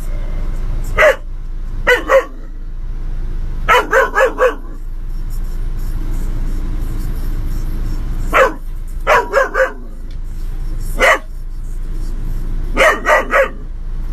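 A young Doberman barking inside a vehicle: about sixteen sharp barks in volleys of one to four, with pauses of a few seconds between them, over a steady low hum. These are alert barks at people coming near the vehicle.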